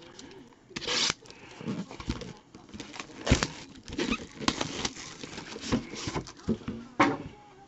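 Football trading cards and their plastic packaging being handled: irregular rustling, crinkling and light clicks, with a louder rustle about a second in.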